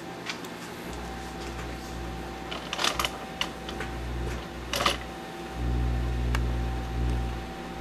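Microwave oven running with a low electrical hum and a steady tone, the hum growing louder near the end. A few sharp crackling snaps come from the wooden pencil heating inside.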